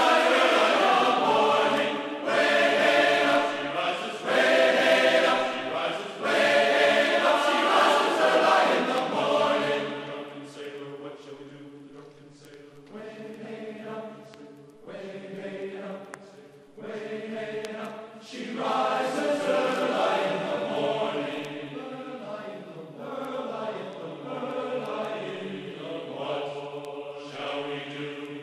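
Background music of a choir chanting in long held notes, louder for the first third, softer in the middle and swelling again about two-thirds of the way through.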